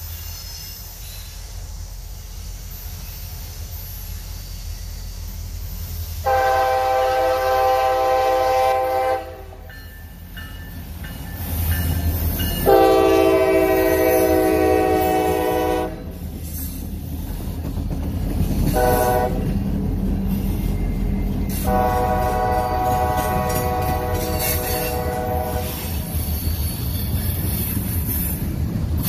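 Locomotive air horn sounding the grade-crossing signal, long, long, short, long, the last blast the longest, over the low rumble of the approaching train.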